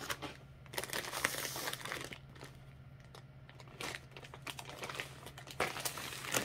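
Clear plastic zip bags crinkling and rustling as they are handled and moved about, in short irregular spells.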